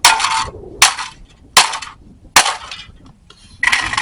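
Hammer blows smashing a coffee maker's circuit board and plastic pieces: four sharp cracks about a second apart, each with a short crunch and rattle of debris, then a longer crunching burst near the end.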